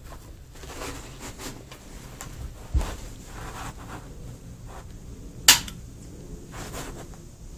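Two rifle shots from a Ruger Mini-30 in 7.62x39, nearly three seconds apart; the second is the louder and sharper crack.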